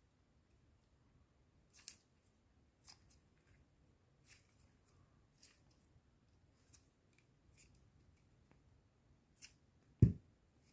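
Faint, sparse crisp snips and crinkles, roughly one a second, from the packaging of a new NeeDoh squishy toy being opened, then a single loud thump near the end.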